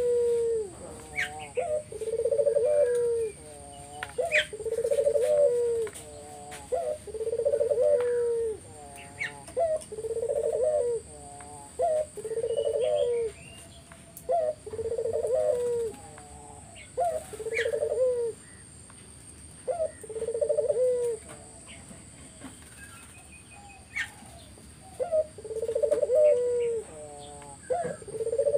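Burung puter, a domestic turtle dove, cooing vigorously over and over: a rolling coo about a second long, repeated every two to three seconds, with one longer pause about two-thirds of the way through. Small birds chirp faintly in between.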